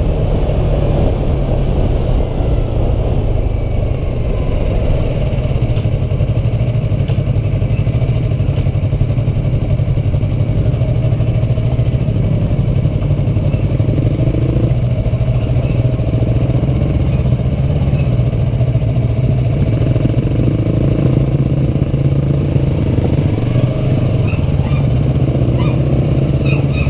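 Sport motorcycle engine running steadily under way, heard from the rider's seat, with a constant low engine note and road and wind noise over it.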